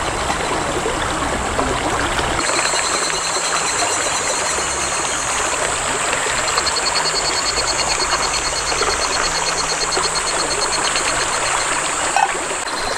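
Shallow mountain river running steadily over stones, a continuous rushing of water.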